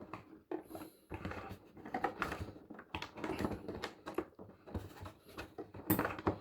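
Hands handling a parcel's packaging and boxed light bulbs: irregular rustling, tapping and clicking of cardboard and plastic.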